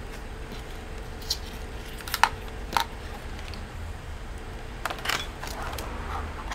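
A few short, sharp clicks and rustles of small hard objects being handled, over a low steady hum.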